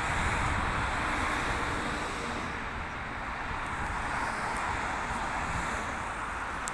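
Steady rushing noise over a low rumble, with no clear rhythm or tone.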